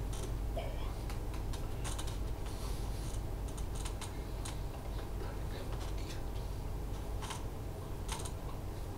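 Steady low room hum with scattered light clicks and taps at irregular intervals.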